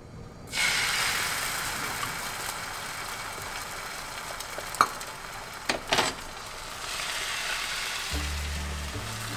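Batter sizzling in a hot non-stick frying pan, the sizzle starting abruptly about half a second in and then running steadily, with a few sharp clicks around the middle. Soft music comes in near the end.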